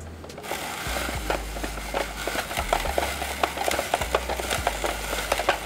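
A carrot being cut on a hand-crank tabletop spiralizer: a dense, irregular run of clicks and crackles as the blade shaves it into spirals. Background music with a steady bass line plays underneath.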